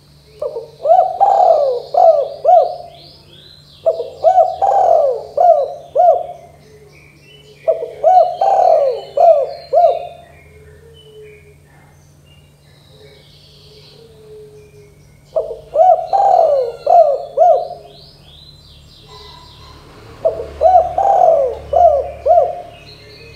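Spotted dove (tekukur) cooing: five phrases, each a quick run of four or five hoarse coo notes lasting about two seconds, with gaps of a second or more between them and a longer pause in the middle. Faint high chirps of other small birds come in between.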